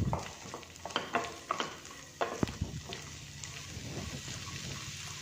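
Green beans and carrot strips frying in a little olive oil in a pan, stirred with a wooden spatula: a steady sizzle with irregular scrapes and taps of the spatula, mostly in the first half.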